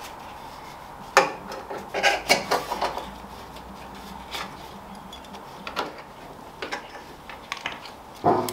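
Metal strap buckle and fittings clicking and rattling against the sheet-metal body as a canvas strap is threaded and pulled tight around an axe head in its bracket. There is a sharp click about a second in, a flurry of clinks a little later, scattered small clicks, and another sharp knock near the end.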